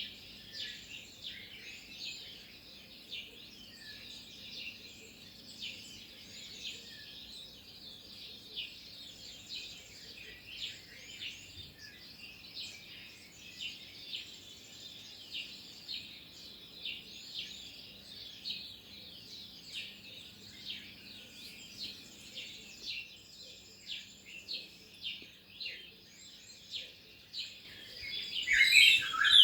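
Many small birds chirping in a dense, continuous chorus of short, high chirps. Near the end the chirping gets much louder and busier, as if birds are close by.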